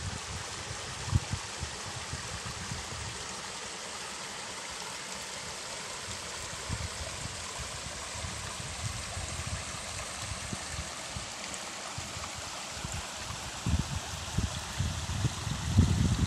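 Shallow water running and trickling along a small muddy ditch, a steady rush, with a few low thuds on the microphone that grow more frequent near the end.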